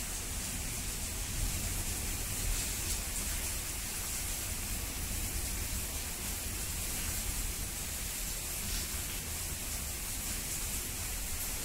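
Steady hiss of falling rain during a thunderstorm, with a low rumble underneath.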